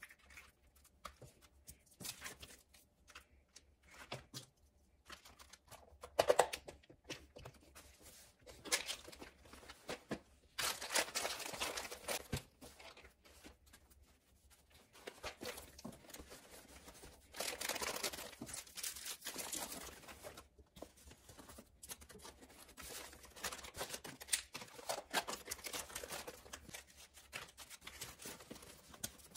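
Plastic packets and wrappers crinkling and rustling as small items are handled and packed, with small clicks and knocks of plastic cases on a hard countertop. There are several longer stretches of rustling.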